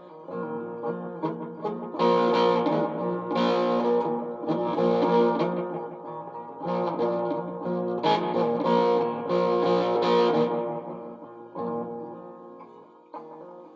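Guitar strummed in loud chords every second or two, thinning to softer, quieter notes near the end.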